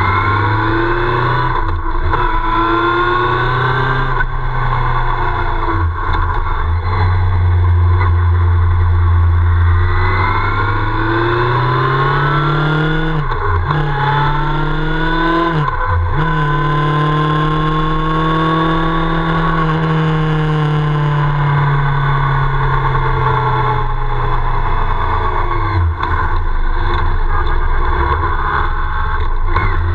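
Motorcycle engine running under way, its pitch slowly rising and falling with the throttle, with two quick dips and recoveries in pitch near the middle.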